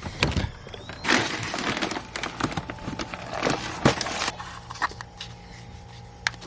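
Goat feed grain being scooped, poured and stirred in a container: a rustling rush of grain with clicks and knocks from the scoop and container.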